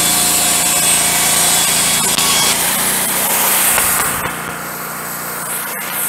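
Wood-Mizer LT15 Go portable bandsaw mill sawing a hemlock cant into boards: its engine runs under load while the band blade cuts through the wood. About four seconds in, the sound drops in level and changes.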